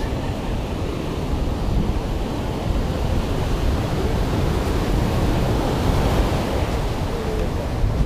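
Ocean surf breaking and washing in, with wind on the microphone adding a steady low rumble.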